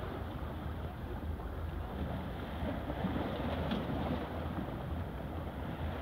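Wind rumbling and buffeting on the microphone over the steady wash of a calm sea at a rocky shore.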